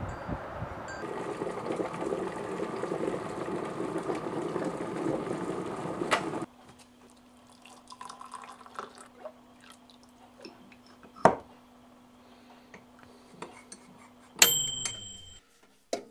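Water poured from a kettle into a mug, with small clinks and a sharp click, over a steady low hum. Before it a rushing noise builds for about five seconds and cuts off suddenly, and near the end there is a short high beep.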